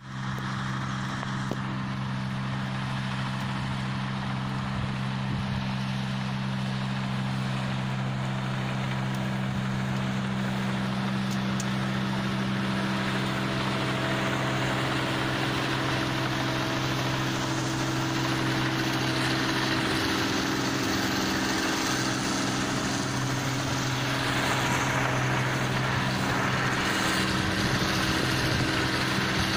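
Sperry New Holland combine harvester running steadily while harvesting rice: a constant engine drone with the noise of its machinery, growing slightly louder near the end.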